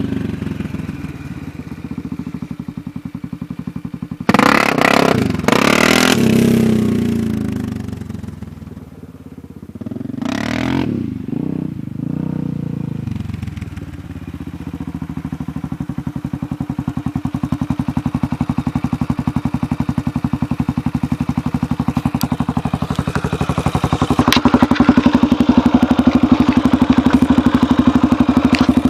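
Honda Rincon 680 ATV's single-cylinder engine through a Big Gun aftermarket exhaust. It is revved hard twice, about four and ten seconds in. It then runs steadily with even firing pulses and gets louder near the end.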